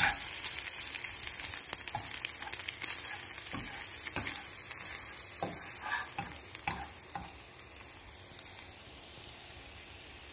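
Scrambled eggs with corn and chicken strips sizzling in a frying pan, with a spatula scraping and knocking against the pan at irregular moments as the mixture is stirred. The sizzle settles lower near the end.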